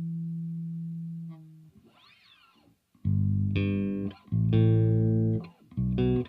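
Fernandes FRB-60 Revolver electric bass played solo. A held low note dies away and is stopped about a second and a half in, followed by a short quiet gap with a faint rising-and-falling slide. From about three seconds in comes a run of loud plucked notes with short breaks between them.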